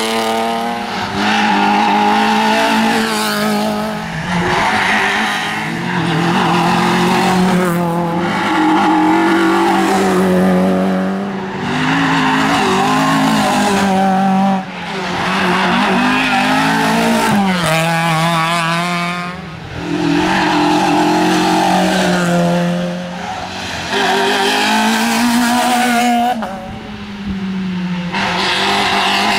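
Rally cars at full throttle passing one after another, engines revving hard, the pitch climbing through each gear and dropping at every shift.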